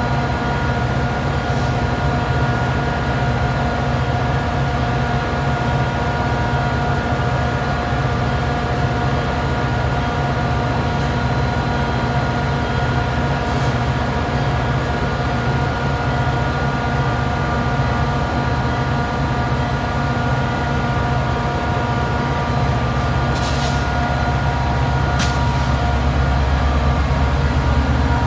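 Metra commuter train standing with its two F40PH-3 diesel locomotives idling: a steady low rumble with a few steady held tones. Two short sharp sounds come a few seconds before the end, and then the low rumble grows louder as the train starts to pull away.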